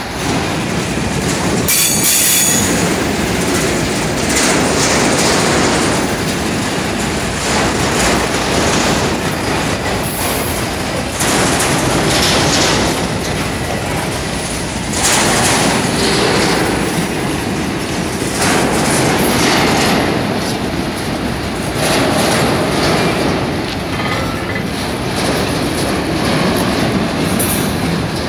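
Freight wagons (covered hoppers and boxcars) rolling past close by: a steady rumble of steel wheels on rail with clacking over rail joints, and brief high-pitched wheel squeals a few times.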